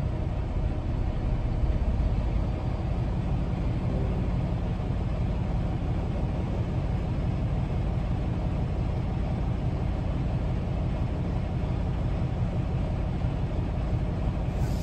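Truck driving along: a steady low rumble of engine and road noise.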